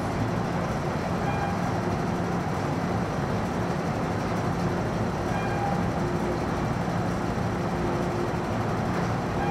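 MTR Island Line M-Train standing at the platform with its doors shut, its onboard equipment giving a steady hum with a low drone that comes and goes.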